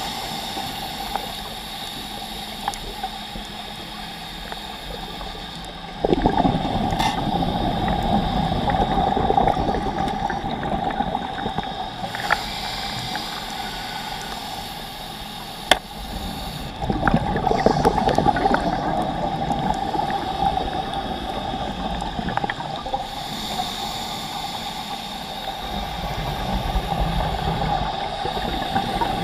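Underwater sound of scuba breathing through a regulator: exhaled breaths bubble out in long bursts of several seconds, about every ten seconds, over a steady hum, with a few sharp clicks.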